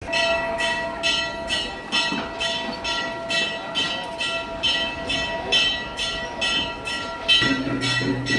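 Metal bells or cymbals struck in a steady rhythm, about two strokes a second, over a continuous ringing tone; a low steady tone joins near the end.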